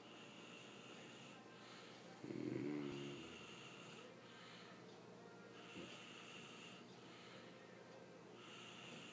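Father and young son snoring in their sleep: one loud snore about two seconds in, then quieter breathing with a thin wheezing whistle on some breaths, and the next loud snore starting near the end.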